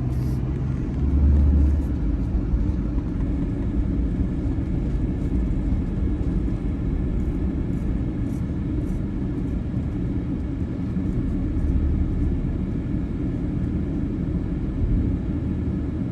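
A heavy-equipment engine running steadily with a low rumble, swelling louder about a second in and again around twelve seconds.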